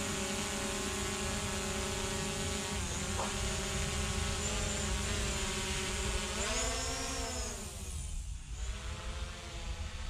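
Quadcopter drone hovering overhead, its propellers giving a steady whine of several tones. About six and a half seconds in, the pitch rises and then sinks, and the sound fades as the drone moves away.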